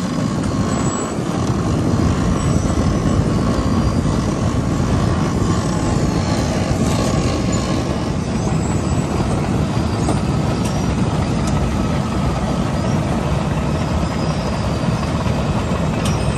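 Heavy machinery running steadily: a dense, even rumble with most of its weight low down, and a few faint ticks near the end.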